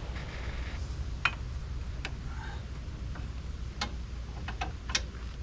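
Scattered light clicks and taps of hand tools and metal parts being handled, about six in all with a quick cluster near the end, over a low steady rumble.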